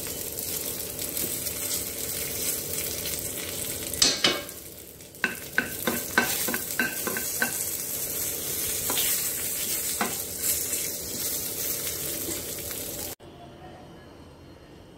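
Tempering spices (mustard seeds, cumin, urad and chana dal, curry leaves and asafoetida) sizzling in hot oil in a small pan, with a string of sharp clicks from about four to ten seconds in. The sizzle cuts off suddenly near the end.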